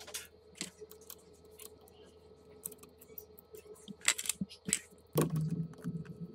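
Small metal parts being handled and fitted by hand: scattered light clicks and taps, a few sharper ones around four seconds in, over a steady hum that grows lower and louder about five seconds in.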